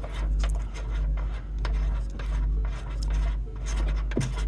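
Faint scraping and clicking of a plastic fastener being worked onto the tail light assembly by hand, over a steady low hum that swells and fades in a slow, regular pulse.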